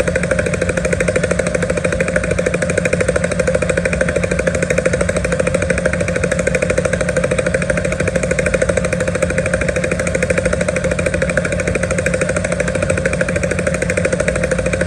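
Bell UH-1 "Huey" helicopter running steadily, its two-bladed main rotor beating out a fast, even chop that holds steady throughout.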